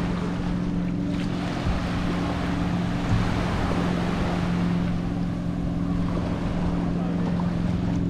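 Small waves washing onto a sandy shore, with wind on the microphone, over a steady low motor hum. The wash swells a little midway.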